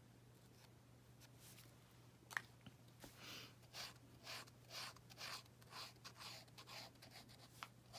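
Faint scratchy strokes of a paint marker drawing on paper, repeating about twice a second. They start after a single small click about two and a half seconds in.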